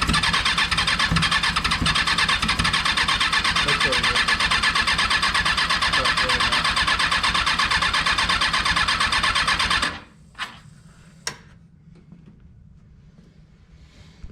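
Rebuilt Kawasaki 636 motorcycle engine being cranked over by the starter for about ten seconds without catching, a fast steady churning that cuts off suddenly; two sharp clicks follow.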